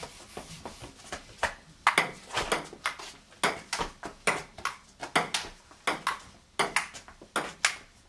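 Table tennis rally: a celluloid ball being hit back and forth, sharp clicks of the ball off the paddles and bouncing on the table, about two to three a second.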